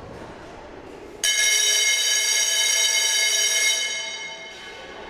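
Electric school bell ringing, one steady loud ring of about two and a half seconds that starts suddenly about a second in and fades away, over the murmur of a busy school corridor.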